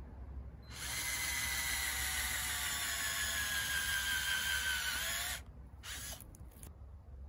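Electric power drill running for about four and a half seconds, its whine sinking slowly in pitch as if under load, then a few short bursts on the trigger.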